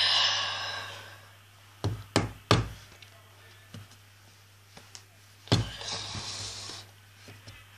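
Three quick knocks about two seconds in, then a fourth knock past halfway followed by about a second of rustling hiss, with a few faint taps, all over a steady low hum: objects being handled and bumped close to the microphone.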